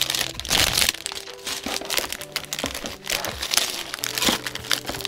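Clear plastic parts bags full of Lego-style bricks crinkling and rustling as hands move them about, in repeated short crackly bursts, over soft background music.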